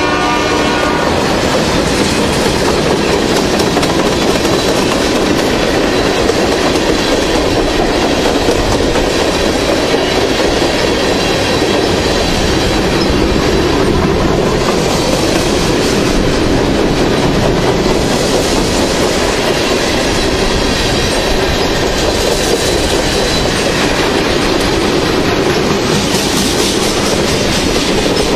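Manifest freight train's cars passing close at speed: steady loud noise of steel wheels on the rails as hoppers and tank cars roll by. The locomotive horn's chord cuts off about a second in.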